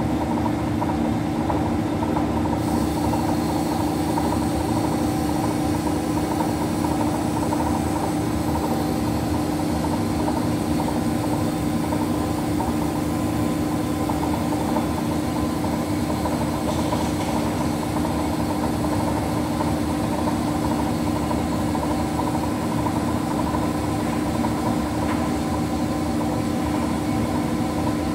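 Tacchi HD 1000 heavy-duty CNC lathe running: a loud, steady machine hum with a strong constant low drone and fainter higher tones, unchanging throughout. A faint high hiss joins about two and a half seconds in.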